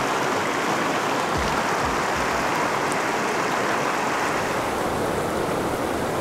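Small rocky stream flowing steadily: an even, constant rush of water.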